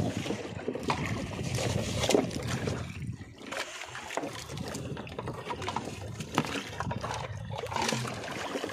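Sea water splashing and sloshing against a small outrigger boat's hull and bamboo floats, with a few sharp knocks.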